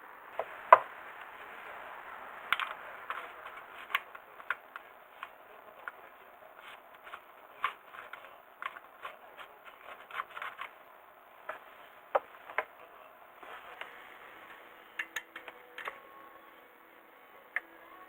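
Irregular sharp clicks and knocks, such as tools and parts being handled, over a steady hiss. The loudest knock comes about a second in, with a busier run of clicks in the middle.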